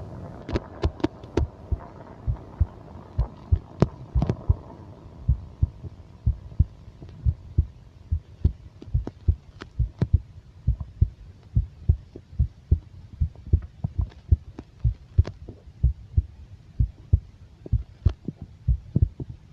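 Abdominal pulse heard through a microphone pressed on the belly: regular low thumps, about two a second, like a heartbeat. A rumbling stomach hum fades out over the first few seconds.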